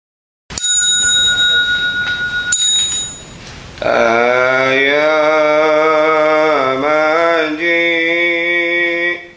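A bell struck twice, each strike ringing on with clear tones for about two seconds. Then a voice begins a Buddhist prayer chant, drawing out long held notes.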